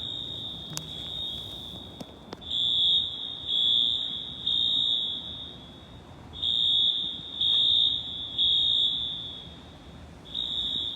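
Synchronized Wheelock AS fire alarm horns on a Notifier system sounding a high-pitched horn tone. It holds steady for about two seconds, then falls into the evacuation pattern of three short blasts and a pause, repeating roughly every four seconds. The parking garage echoes the sound.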